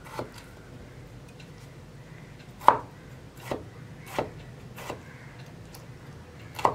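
A large kitchen knife slicing a tomato on a wooden cutting board, the blade knocking against the board with each cut. About five sharp knocks come under a second apart, starting nearly three seconds in, with the loudest near the end.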